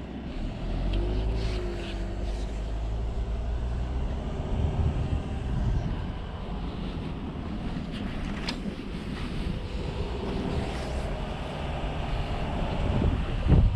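Car driving along a rough, broken mountain road: steady low engine and tyre rumble, with a couple of sharp knocks.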